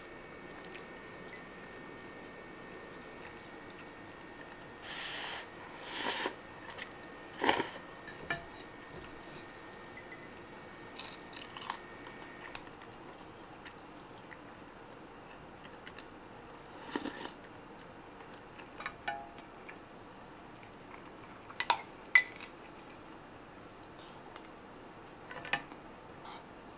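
Close-up eating sounds: a person chewing and biting food, with scattered sharp clicks of chopsticks and a spoon against a plate and a pot.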